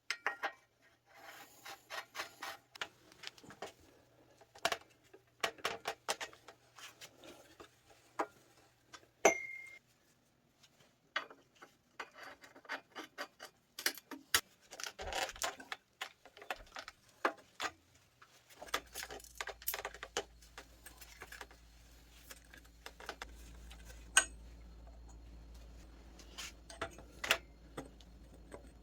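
Metal tools and parts being handled during hands-on bike work: irregular clicks, taps and clinks, with one brief ringing clink about nine seconds in. A low steady hum comes in about two-thirds of the way through.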